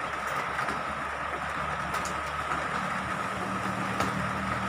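A steady low engine-like hum, like a motor vehicle idling, with a couple of faint crinkles from a plastic courier pouch being pulled open.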